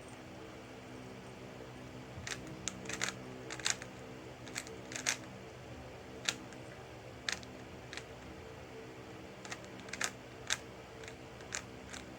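3x3 Rubik's cube being turned by hand, its plastic layers clicking in irregular clusters of sharp clicks with short pauses between moves.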